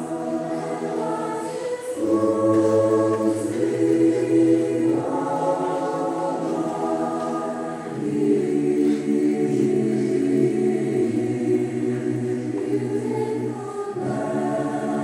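A choir singing slow, sustained chords, with the harmony changing every few seconds.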